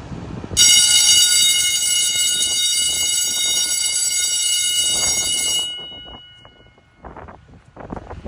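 School bell ringing loudly and steadily for about five seconds, starting abruptly and then dying away.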